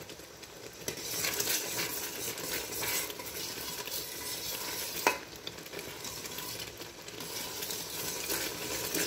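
A spatula stirring and scraping milk that has thickened almost to khoa in a steel pot, with the milk bubbling and sizzling on the flame. There is one sharper knock of the spatula about five seconds in.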